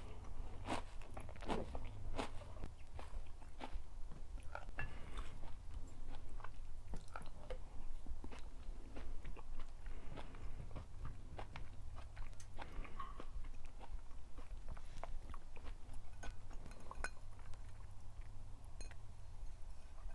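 A person chewing and biting food close to the microphone: many short, moist clicks and crunches, coming thickly in the first few seconds and more sparsely after, over a low steady hum.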